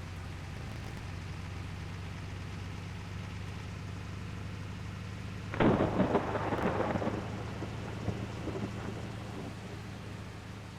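Water truck's engine running with a steady low hum. About halfway through, a sudden loud burst of rumbling noise fades away over about two seconds, followed by a few smaller knocks.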